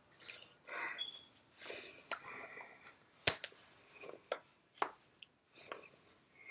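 Scattered sharp taps and slaps of hands meeting each other and brushing the shirt while signing in sign language, the loudest a little past three seconds in, with soft breathy mouth noises and lip smacks in between.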